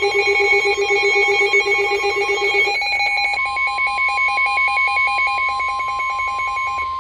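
Weather radio alert: rapid pulsing electronic beeps, joined about three seconds in by the steady 1050 Hz NOAA Weather Radio warning alarm tone; both stop together at the end, just before the warning message.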